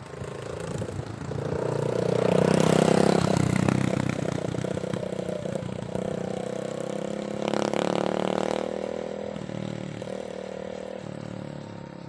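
An engine running, growing louder over the first few seconds, surging briefly about seven and a half seconds in, then slowly fading.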